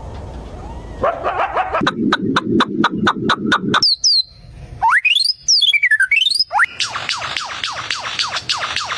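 A run of bird calls in several different types. First a rapid series of clicks, about five a second, over a low buzz. Then a short high chirp and whistles that sweep up and down. Near the end come fast, repeated downward-sliding chirps.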